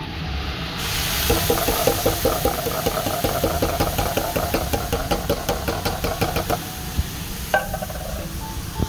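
Coconut milk being poured into a hot pan of taro leaves and pork, hissing and sizzling as it hits the pan. A fast, even bubbling runs through most of it.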